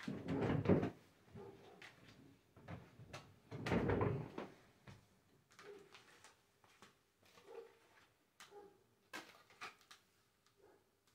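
Oracle cards being handled on a table: two rustling bursts of shuffling about a second long, at the start and about four seconds in, then soft taps and slides as cards are laid down.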